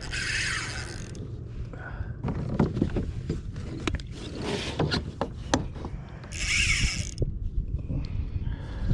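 Irregular clicks, knocks and rattles of gear being handled aboard a kayak, with two bursts of hiss or splashing, each about a second long: one at the start and one a little past six seconds in.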